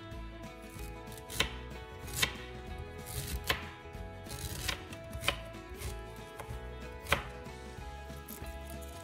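Chef's knife slicing fresh ginger on a wooden cutting board: about six sharp, separate chops at uneven spacing, each blade striking the board.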